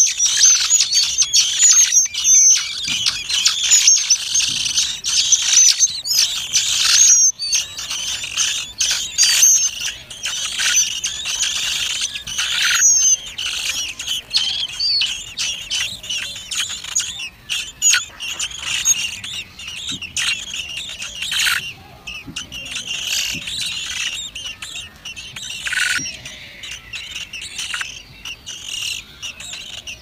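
A brood of thrush nestlings begging at the nest with a dense run of high, squeaky cheeps. The cheeping is loudest and busiest in the first dozen seconds while they gape for food, then thins out and grows quieter.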